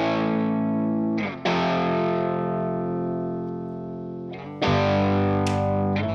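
Distorted electric guitar playing sustained chords in a rock song's intro. Chords are struck near the start, about a second and a half in and again near the end, and each is left to ring and fade.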